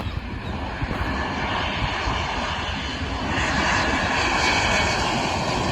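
Lufthansa Airbus A350-900 jet coming in to land, its Rolls-Royce Trent XWB engines making a roar and whine that grows louder about three seconds in as it passes.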